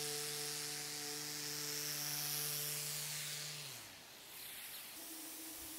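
Electric orbital sander with dust-extraction hose running steadily with a hum and a hiss as it scuff-sands the first coat of paint on a dresser top. About three and a half seconds in it is switched off and winds down. About a second later a different steady hum starts.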